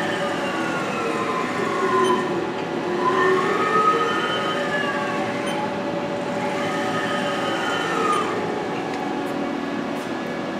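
Haas TM-2 CNC mill's Z-axis servo drive and ball screw whining as the spindle head jogs. The whine slides down in pitch, climbs again around two to four seconds in, and falls again near eight seconds, over a steady machine hum.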